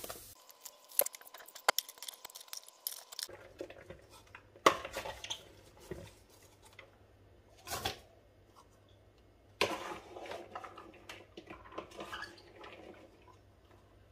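Knocks, clinks and scraping against a stainless steel pot as chopped chilli and diced apple are added and a small cup is worked against it, with light rustling in between. A few sharp knocks stand out, the loudest about four and a half seconds in.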